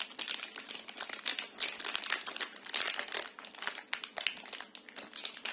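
Crinkling of nebuliser medicine packaging, plastic nebule ampoules in their wrapper, handled in the hands: a dense, irregular run of small crackles.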